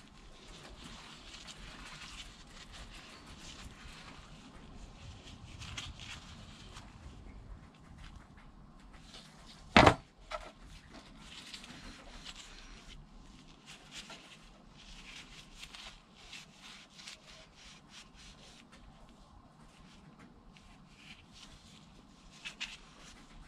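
Workbench handling of the vacuum pump's parts: small clicks, taps and rustles from gloved hands working metal pieces in a plastic tub, with one sharp, loud knock about ten seconds in and a lighter one just after.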